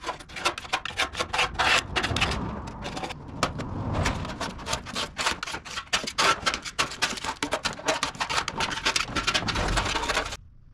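Paint being scraped off a steel VW Beetle wing by hand: rapid, irregular scratching strokes against the sheet metal, stopping suddenly near the end.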